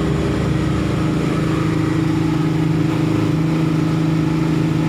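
Twin outboard motors running steadily at speed on a fast boat, a constant engine drone over the rush of the wake.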